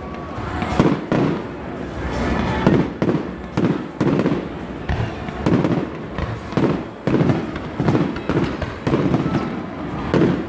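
Fireworks display: aerial shells bursting in an uneven, rapid run of sharp bangs, a few every second, over a continuous crackle.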